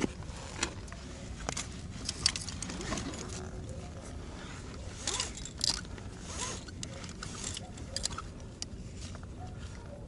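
Irregular scrapes and clicks, like a climber's boots and gear moving on rock, over a steady low rumble.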